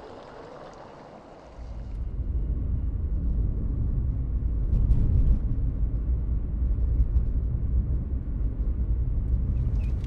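Steady low rumble of engine and road noise inside a moving car, coming in about a second and a half in, with a few faint ticks over it.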